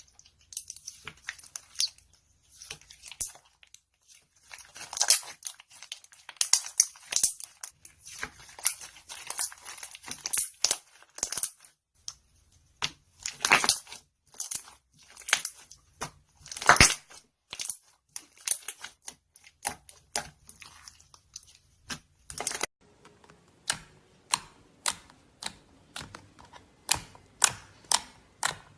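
Slime being squished, stretched and pressed by hand, making irregular crackles, pops and tearing sounds. Near the end it changes to sharper, more evenly spaced clicks, about two a second.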